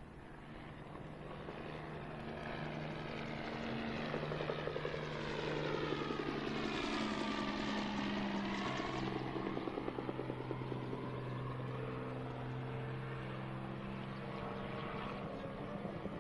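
Aircraft engine flying past overhead: the sound swells over the first several seconds, and the engine note drops in pitch around the middle as it goes by, then stays loud as it moves away.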